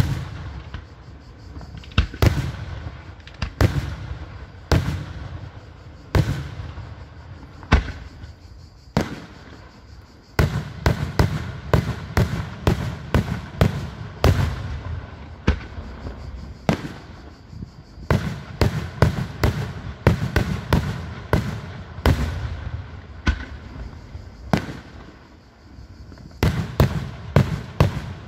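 Daytime fireworks: aerial shells bursting with sharp bangs. The bangs come a second or two apart at first, then in rapid volleys from about ten seconds in.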